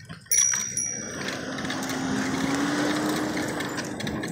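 A bicycle bell rings near the start, a bright high ding that rings on for about a second. A steady rushing noise follows, with a faint low hum.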